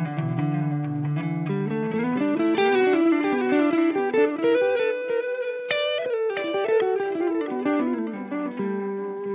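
Electric guitar played through a T-Rex Replicator D'luxe tape echo pedal. Low notes come first, then a fast single-note line climbs and falls back, with the echo's repeats trailing the notes.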